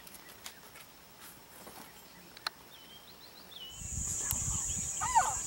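Faint, scattered bird chirps in the bush. Near the end a steady high-pitched insect buzz starts suddenly along with a low rumble, and a bird gives a louder sweeping call just before the end.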